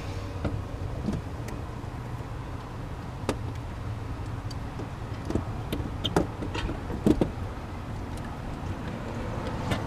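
Steady low hum of traffic with a few scattered sharp clicks and knocks, the loudest about six and seven seconds in.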